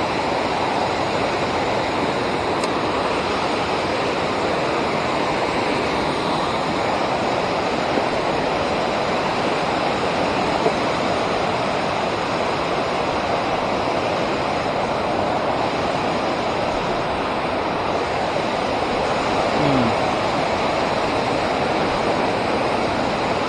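Steady rush of river water pouring over a dam.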